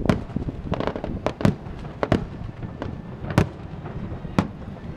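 Aerial fireworks shells bursting in a string of sharp bangs, about eight of them, bunched in the first second and a half and then coming about a second apart, over a continuous low rumble.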